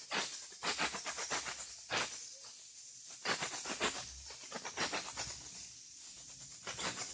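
A hand squishing and mixing a milky liquid into flour in a steel bowl: irregular wet squelching and rustling strokes.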